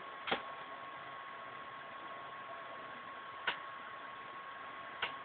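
Faint, steady background hiss of the recording with a thin, high, steady tone running through it, broken by three short soft clicks, about a second and a half apart at first and then near the end.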